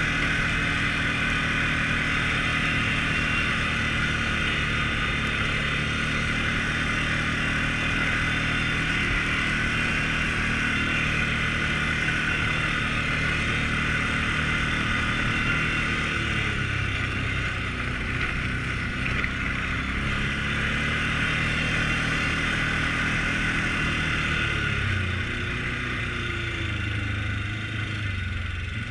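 Can-Am Outlander 450 ATV's single-cylinder engine running under way on a dirt trail, a steady drone with the engine speed falling and rising a few times in the second half as the throttle is eased off and opened again.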